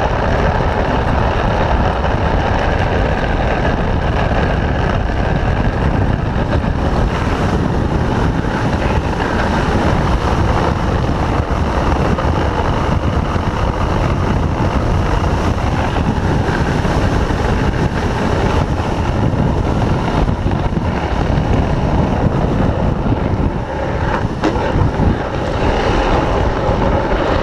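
Drift trike rolling and sliding downhill, its PVC-sleeved rear wheels scraping steadily on the road, with heavy wind buffeting the microphone.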